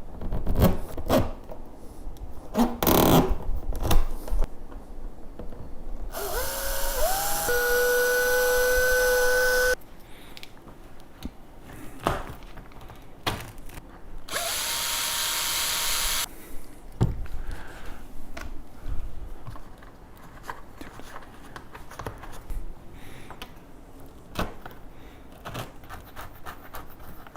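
Power drill run twice: a longer run about six seconds in that rises to a steady whine and holds for several seconds, then a shorter run about fourteen seconds in. Knocks and clicks of parts being handled come between the runs.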